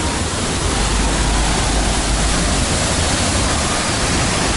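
Waterfall plunging into its pool: a steady, loud rush of falling water with a deep rumble underneath.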